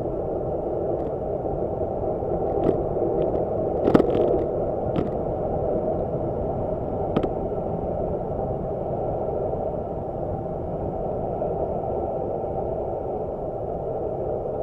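Steady wind rush and road noise from a road bike descending at speed, picked up by a handlebar-mounted camera, with a few sharp knocks from bumps in the road. The loudest knock comes about four seconds in.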